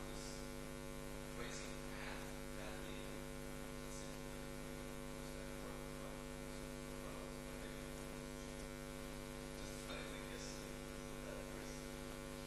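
Steady electrical mains hum made of several steady tones, with a few faint, soft rustles from the room.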